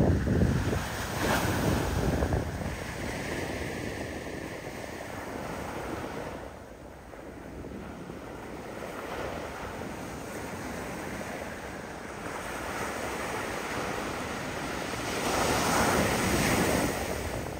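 Ocean surf breaking and washing on the beach, with wind on the microphone. The rush swells louder at the start and again near the end.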